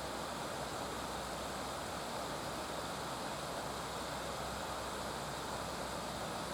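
Steady rushing of river water: an even noise that holds the same level throughout, with no calls.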